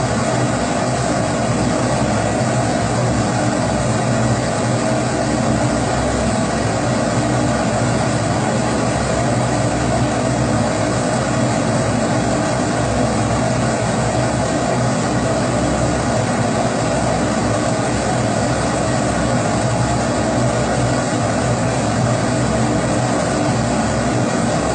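Kerosene pressure stove (Primus-type babour) burner running at full flame, a loud, even, unbroken roar of burning vapour with a steady low hum.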